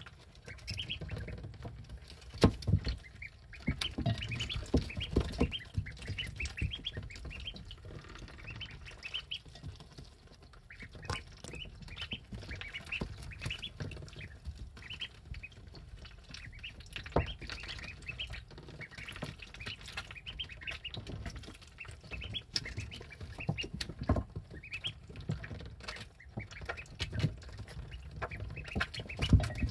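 Eleven-day-old ducklings peeping in quick runs of short high calls, with sharp clicks and taps as their bills dabble at the water dish and feeder, and a few louder thumps.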